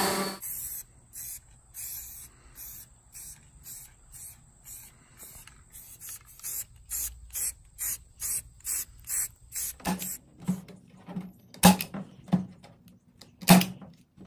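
Short hisses from a spray-paint can, two or three a second. From about ten seconds in, sharp clacks of a hand staple gun fastening wire mesh to a wooden frame, the loudest strikes near the end.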